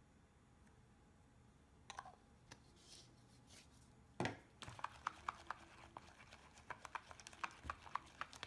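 Plastic spatula stirring thick, sticky slime mixture in a plastic bowl: faint scattered clicks, one louder knock about four seconds in, then a run of faint wet clicks and taps about four a second.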